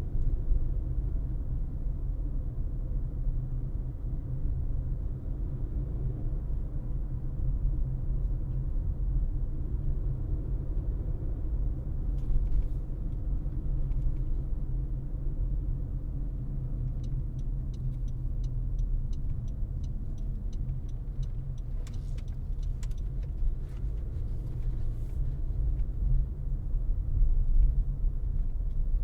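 Car driving along with a steady low rumble of road and engine noise. A short run of evenly spaced light ticks comes about two-thirds of the way in, followed by a few scattered clicks.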